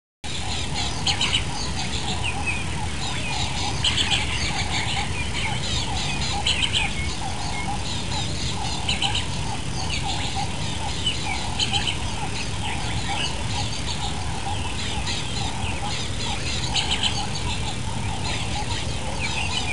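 Many birds chirping at once, a dense chorus of short calls that starts suddenly and goes on without a break, over a low steady rumble.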